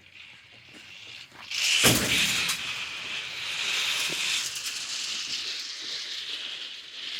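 A sudden thump about two seconds in, followed by a steady hissing rush that carries on.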